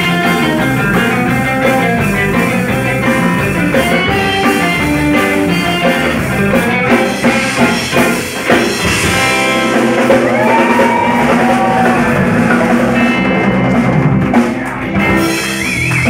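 Live surf rock band playing: amplified electric guitars over a drum kit.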